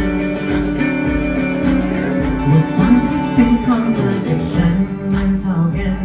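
Live band playing: electric guitars over a Taye drum kit keeping a steady beat.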